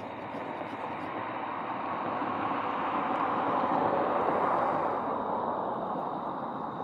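A car passing on the road: tyre and engine noise swell to a peak about four seconds in and then fade away.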